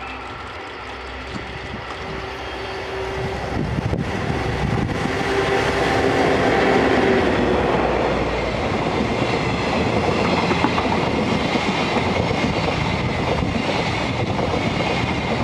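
EF65 electric locomotive hauling a rake of passenger coaches approaching and passing close by. The rumble builds over the first few seconds, then holds as a steady noise of wheels on the rails while the long line of coaches goes by.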